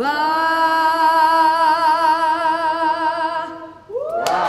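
A woman singing unaccompanied holds the song's final note, on the word "bat", with a steady vibrato for about three and a half seconds. Just before the end the audience breaks into applause and cheers.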